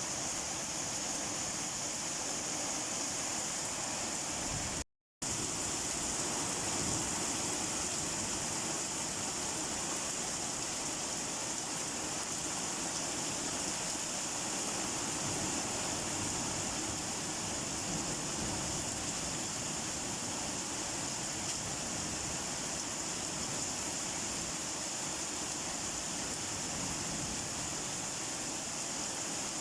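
Steady rain falling, an even hiss with no distinct drops, broken once by a split-second dropout to silence about five seconds in.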